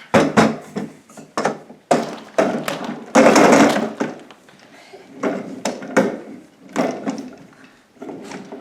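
Toy train knocking and clattering as it is handled, with a longer scraping rattle about three seconds in, then scattered clunks.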